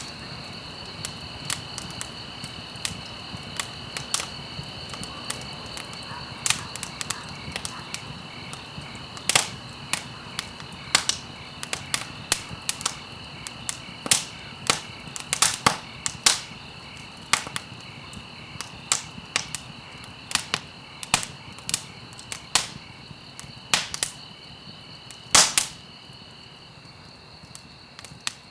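Wood fire burning in a fireplace, crackling with irregular sharp pops, some coming in quick clusters, over a soft hiss. A faint steady high-pitched tone runs underneath.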